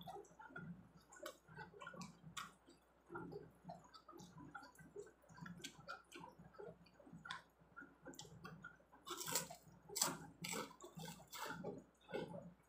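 A person chewing crunchy shrimp crackers, with wet mouth sounds and many short crisp crunches, louder about nine to eleven seconds in.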